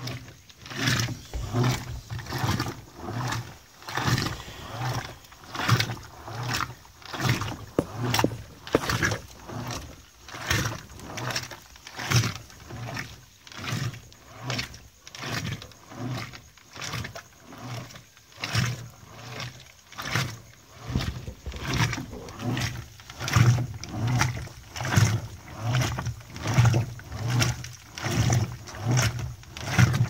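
Electrolux LDD16 16 kg top-loading washing machine agitating a load on its extra-low water level. The agitator motor hums and the clothes and suds swish back and forth with each reversal, in an even rhythm a little more than once a second.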